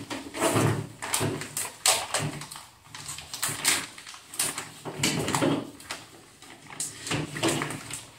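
Crinkly packaging rustling and crackling in the hands as it is worked open with a screwdriver stabbed through it, in irregular bursts of crackles and taps with short quiet gaps.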